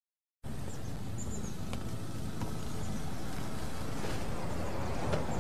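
Brief silence, then steady outdoor ambience: an even, low rumble with a few faint high chirps.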